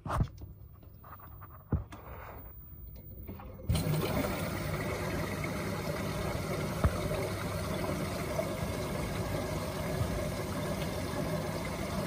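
Water running steadily into an LG F14WD84EN0 washer-dryer as it fills. The sound starts suddenly about four seconds in, after a quieter stretch with a couple of knocks.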